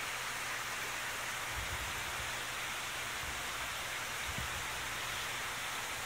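Steady rushing hiss of aquarium pumps and circulating water, with a faint low hum underneath. Soft low thumps come about one and a half seconds in and again about four seconds in.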